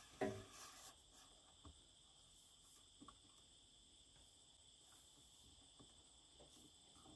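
Near silence: faint, steady high chirring of crickets, with a few faint clicks from handling the PVC pole.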